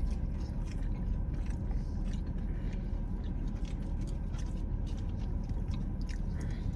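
Close-up chewing and mouth sounds of someone eating, many small clicks and smacks, over the steady low hum of a car interior.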